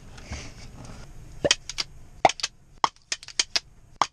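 A run of sharp, very short clicks or ticks, about a dozen, irregularly spaced with some in quick pairs and clusters, beginning about a second and a half in.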